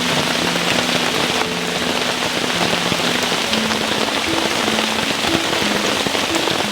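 Heavy rain falling steadily, a dense hiss of countless drops, with soft background music of held low notes underneath.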